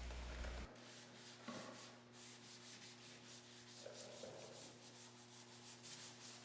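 Faint wet sanding of a cloudy headlight lens with 600-grit sandpaper: quick, even back-and-forth rubbing strokes, several a second.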